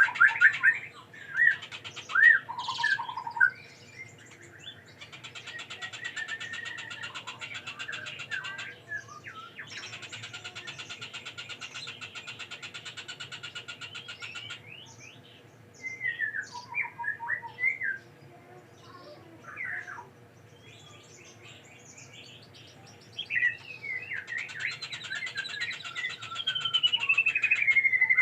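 Young white-rumped shama chirping and calling: short sliding chirps, with long stretches of fast rasping trill in the middle and near the end, and a loud falling whistle at the close.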